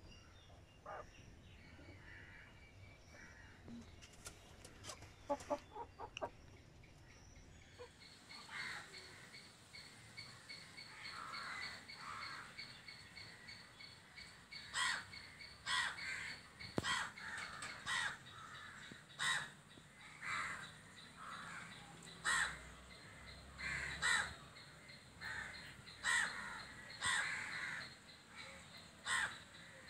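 A crow cawing over and over, harsh calls about once a second, over a faint steady high whine.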